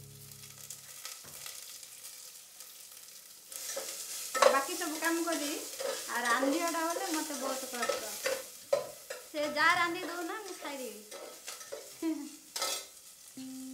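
Food sizzling in a pan as it is stirred, starting about three and a half seconds in, with voices talking over it and a sharp click near the end.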